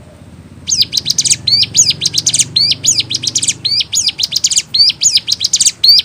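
Ciblek gunung, a prinia, singing a fast, unbroken run of sharp, high chirps that starts a little under a second in.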